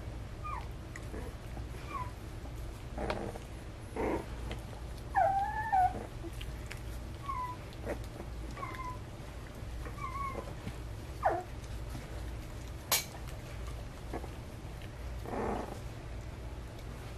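Young standard poodle puppies giving short, high squeaks and whimpers, about a dozen in all, with a louder wavering whine about five seconds in. A sharp click about thirteen seconds in, over a low steady hum.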